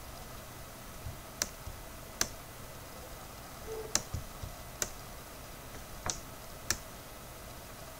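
Computer mouse clicks: six sharp, separate clicks at uneven intervals over a faint steady background hum.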